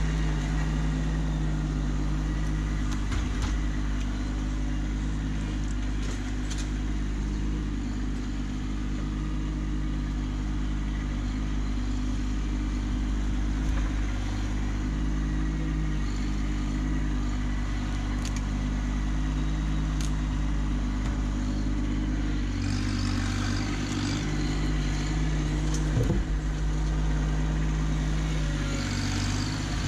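Kubota B2601 compact tractor's three-cylinder diesel engine running steadily as the tractor drives about with its grapple, with a few light knocks. Twice near the end the engine note shifts and a hiss rises over it.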